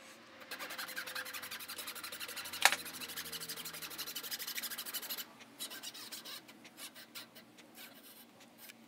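Japanese dozuki saw cutting a dovetail kerf into a wooden board, with quick, even rasping strokes and one sharper click a few seconds in. From about five seconds in the strokes become fewer and fainter.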